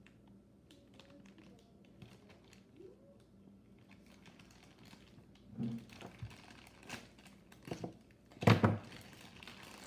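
Hands picking and poking at a Happy Meal toy's sealed plastic packaging to make a hole in it: scattered small clicks, taps and crinkles. A louder knock comes about 8.5 seconds in.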